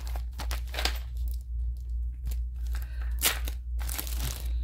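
Clear plastic packaging crinkling and rustling in short, irregular crackles as it is handled, over a steady low hum.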